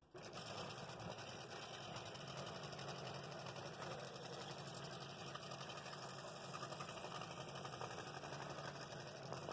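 Scroll saw running and cutting through a thick wooden box lid, its blade stroking up and down rapidly in a steady, even buzz.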